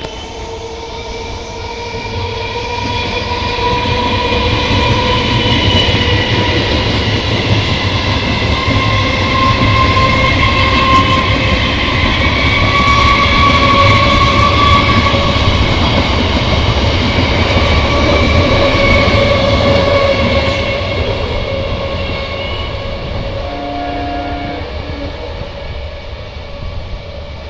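Electric multiple-unit local train passing close by: a rumble and clatter of wheels on rails with a steady whine over it, building over the first few seconds, loudest through the middle, then fading. A short tone sounds near the end.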